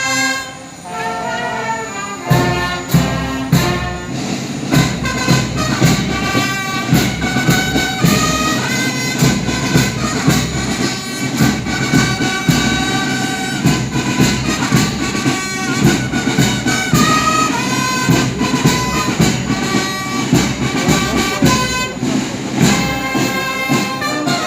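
Brass-led music with a steady beat: held brass notes over regular percussion.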